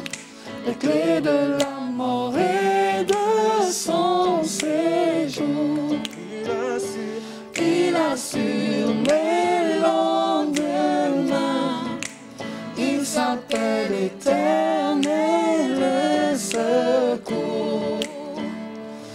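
A hymn sung by a worship leader into a microphone, accompanied by an electric keyboard holding sustained chords.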